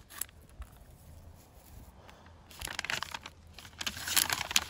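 Blind bag packaging being handled and opened, crinkling and rustling in two short spells in the second half.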